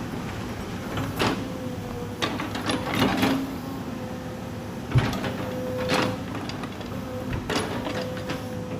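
Excavator running steadily with a held tone, broken by several sharp knocks and clunks as it handles logs.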